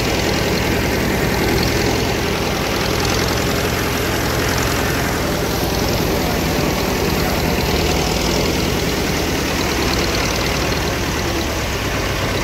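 An engine running steadily with an even, low throb.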